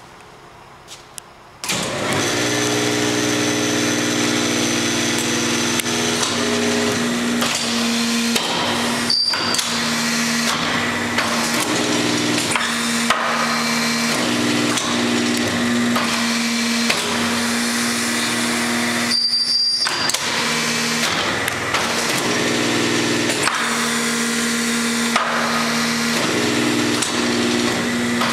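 Hydraulic power unit of a Pines No. 2 tube bender starts abruptly about two seconds in and runs with a steady hum. Its lower tones swell and fade every few seconds as the machine works through its cycle. Twice the sound briefly drops away with a short high tone.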